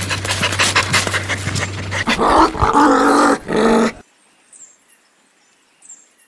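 Dog sound effects: rapid panting over a steady low hum, then about two seconds of pitched, wavering dog vocalising.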